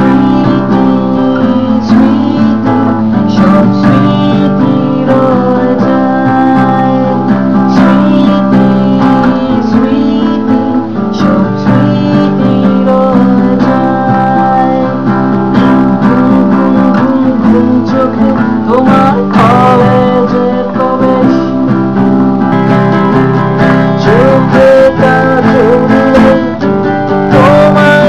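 Acoustic guitar being strummed, accompanying a man singing.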